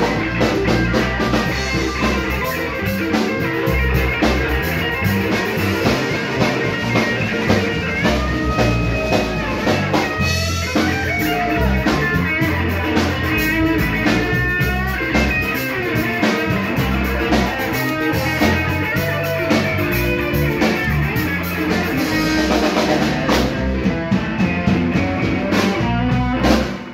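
Live blues band playing, with electric guitar and drum kit driving a steady beat, and bending melody lines in the middle stretch.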